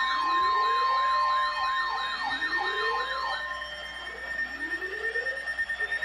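Electronic sirens layered together. A fast warbling siren wavers about two and a half times a second and stops a little past halfway. Under it a slower siren whoops upward every second and a half or so, over steady high tones.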